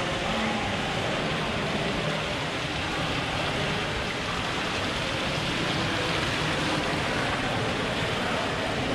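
Ornamental fountain water spilling over the rim of its basin into the pool below: a steady splashing hiss.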